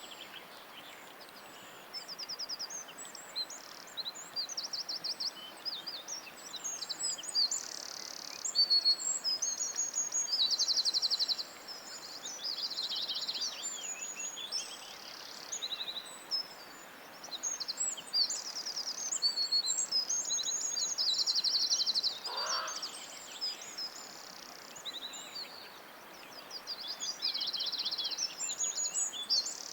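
Several songbirds singing together: fast trills, chirps and rapid fluttering phrases that come and go all the way through, over a steady soft hiss of forest background. About two-thirds of the way in there is one brief lower, falling call.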